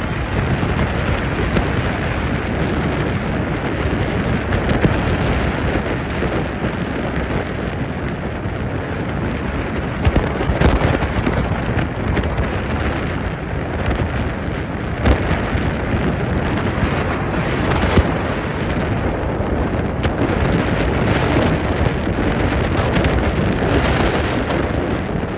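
Heavy wind buffeting the microphone aboard a moving boat: a loud, steady rush of noise with a few sharper thumps.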